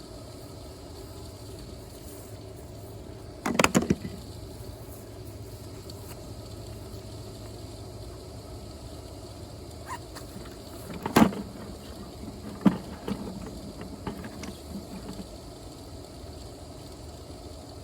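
Wood and a metal firebox being handled: a short rattle of sharp knocks about three and a half seconds in, then a few more knocks from about ten to fifteen seconds in, the loudest near eleven seconds. A steady low background noise lies under it.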